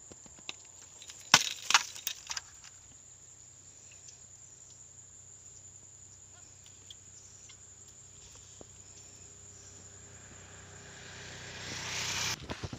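Dry reed stalks snapping and rustling as someone moves through a dense reed bed: a few sharp cracks about a second and a half in, then a rustle that swells near the end.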